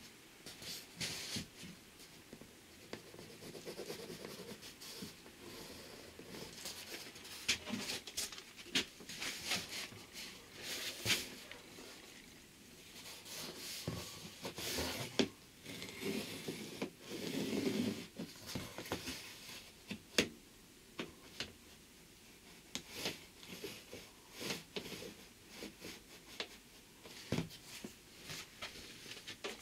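Sheet of cardboard rubbing and scraping against a wooden frame while a pen scratches across it, marking it out, with scattered light knocks and clicks.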